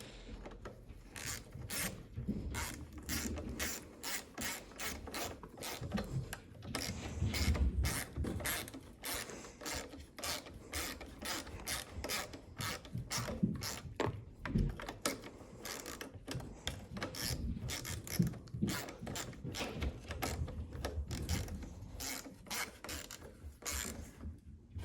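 Hand ratchet with a socket clicking steadily, about two or three clicks a second with short pauses, as bolts are run in on a lawnmower's carburetor mounting.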